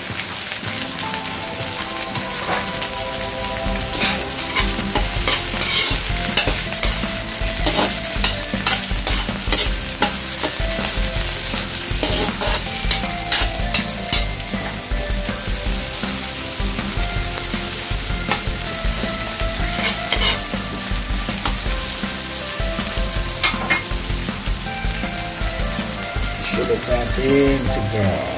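Garlic, ginger and onion frying in oil in a metal wok, sizzling steadily, while a metal spatula stirs and scrapes them around the pan with frequent clinks against the wok.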